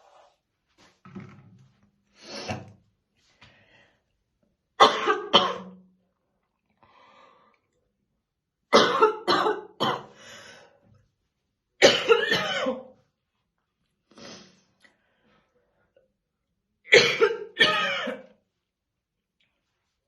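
A woman's heavy, deep smoker's morning cough, coming in fits of two to four hard coughs every few seconds, with softer single coughs between.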